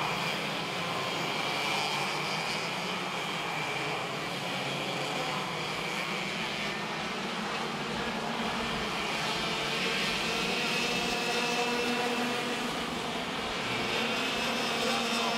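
Several racing go-karts' two-stroke engines running at high revs, a steady, overlapping whine as the karts pass, a little louder in the second half.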